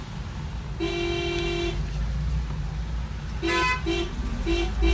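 Vehicle horns in stop-and-go street traffic: one held honk lasting about a second near the start, then a run of short quick toots in the second half, over the steady low rumble of engines, heard from inside a car.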